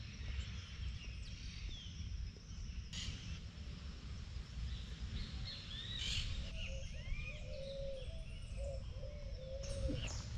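Several birds chirping and calling, with short high chirps throughout and a run of lower, repeated short calls in the second half, over a low continuous rumble.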